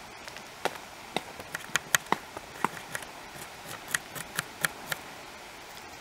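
Kitchen knife chopping red cabbage on a plastic cutting board: a dozen or so irregular sharp knocks of the blade on the board, stopping about a second before the end.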